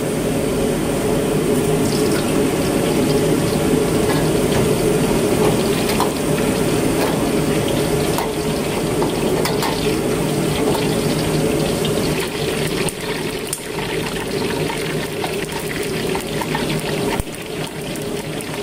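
Steady rushing roar of a gas wok burner heating a wok of cooking oil, with a few light clinks of a metal ladle against the wok.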